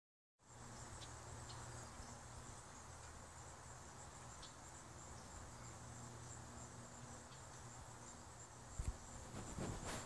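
Crickets chirping in a faint, steady high trill, over a low steady hum, with a brief knock near the end.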